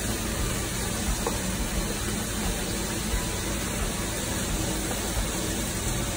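Steady rushing noise of several pots cooking on the stovetop, boiling and sizzling, with a light scrape of a spatula stirring food in a foil baking pan.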